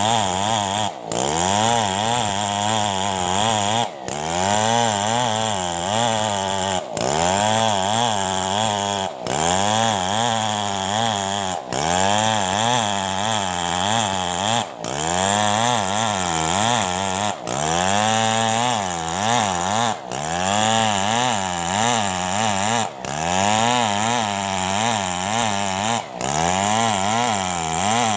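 Chainsaw running under load while ripping a coconut trunk lengthwise. Its engine note rises and sags in a repeating cycle about every three seconds, with a brief drop between cycles.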